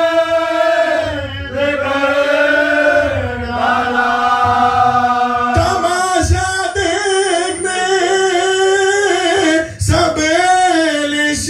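A man chanting a noha, an Urdu mourning lament, into a microphone, in long drawn-out notes that slowly bend in pitch, with a short break in the voice near the end.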